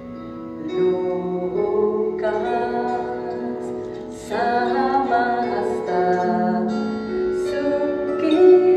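Live ensemble music: plucked strings and sustained singing, with held chords that change every second or two and grow louder about a second in and again about four seconds in.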